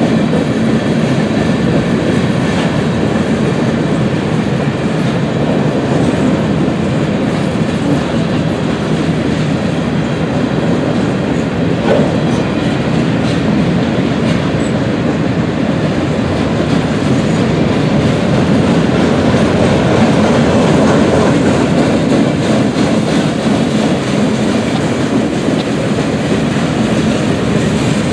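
Mixed freight train rolling past at a steady speed: tank cars, covered hoppers and boxcars, their steel wheels running over the rails and clattering over the joints. A single louder knock comes about halfway through.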